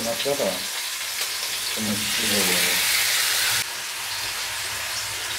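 Marinated chicken pieces sizzling in hot oil in a cast-iron tawa, a steady frying hiss. About two seconds in, the sizzle turns louder and brighter for a second and a half, then drops back abruptly.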